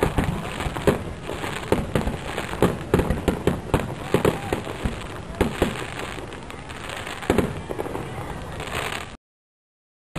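Fireworks display: rapid, overlapping bangs and crackling from bursting shells. The sound cuts off to complete silence about nine seconds in.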